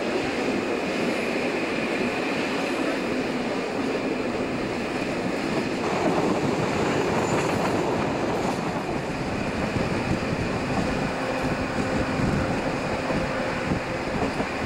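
Steady running noise of a passenger train heard at an open window: wheels rolling on the rails with rushing air.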